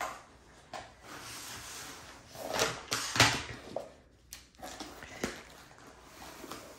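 Long cardboard kit box being opened and handled on a wooden table: rustling with scattered sharp clicks and knocks, the loudest a close pair about three seconds in as the end flap is pulled open, and another knock about five seconds in.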